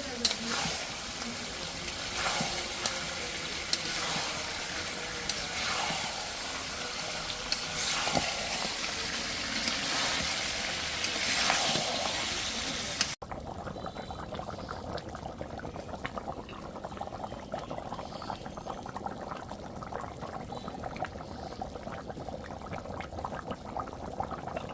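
Beef curry cooking in a pot: sizzling and bubbling with frequent short clicks and knocks in the first half. After a sudden cut about halfway, it turns to a quieter, steady fine bubbling.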